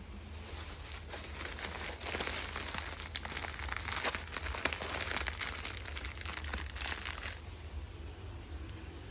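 Packaging being handled, crinkling and rustling with many small crackles, from about a second in until it stops near the end.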